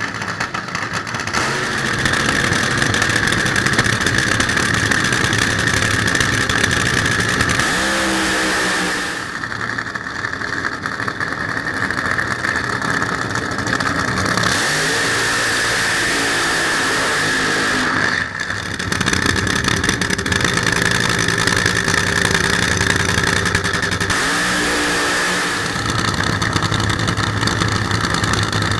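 Nitro funny car engines at full throttle during burnouts and launches, very loud and distorted. The sound comes as several separate runs split by abrupt cuts, with a few engine revs sweeping up and back down between them.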